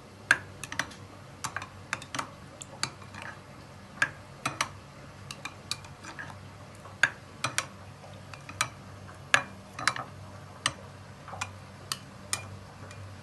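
A spoon stirring thick yogurt in a steel bowl, tapping and clicking irregularly against the bowl's side, a few times a second.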